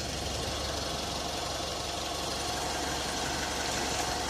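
Mitsubishi Triton (L200) pickup's engine running steadily with an even low hum.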